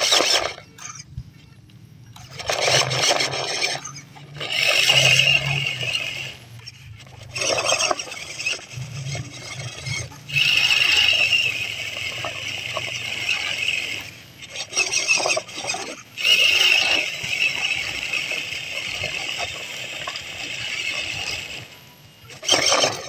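MN99s 1/12 Defender RC crawler's 260-size brushed motor and gearbox whirring in stop-start bursts of throttle, with the tyres scraping over a log and dry leaves.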